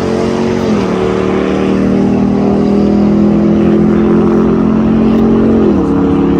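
Car engine pulling hard at full throttle through a drag strip run, its note climbing slowly in each gear and dropping sharply at two upshifts, about a second in and near the end.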